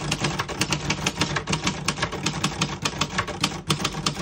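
Keys of a 1971 Royal Mercury manual portable typewriter being typed at a steady pace, about seven keystrokes a second, each typebar striking the platen with a sharp clack.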